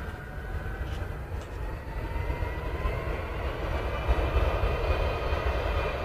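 Jet engines of a C-17 Globemaster III, their four Pratt & Whitney F117 turbofans giving a rushing noise with a whine that rises slowly in pitch as the sound grows louder.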